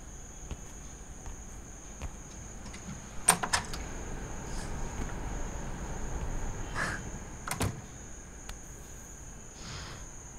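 Quiet ambience with a steady high-pitched chirr and a low rumble that swells in the middle, broken by a quick cluster of sharp clicks about a third of the way in and a single click later.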